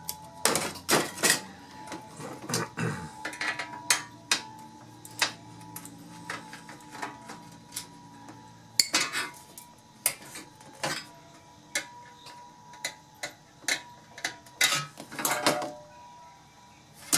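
Metal parts of a Samsung SyncMaster 940BW LCD monitor being stripped by hand: a steel chassis, an extruded aluminium heat sink and a screwdriver clatter and knock on a workbench. It is an irregular string of sharp clacks and rattles, loudest about half a second to a second in, again around nine seconds and around fifteen seconds.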